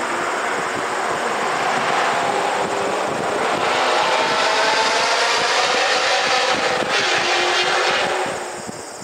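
A race car's engine running hard on track, growing louder with its pitch gliding up and down, then dropping away sharply near the end.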